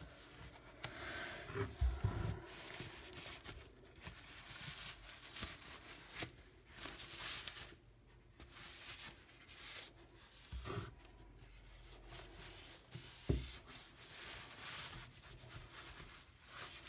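Thin LDPE plastic bag and wrapping sheet rustling and crinkling as a computer keyboard is slid out of it, with a few soft knocks of the keyboard's plastic case.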